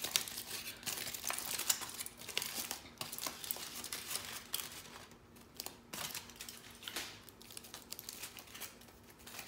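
Burger wrapping being unwrapped by hand: paper and foil crinkling and tearing in irregular crackles, busier in the first few seconds and thinning out after, over a faint steady hum.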